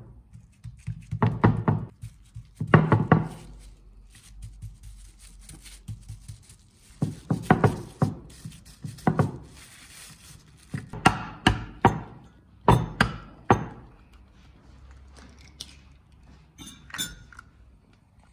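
Two forks repeatedly stabbing raw chicken breast fillets through a plastic sheet onto a wooden cutting board: rounds of quick thunking taps with quieter gaps between. Near the end there is one sharp tap as an egg is cracked on a glass mug.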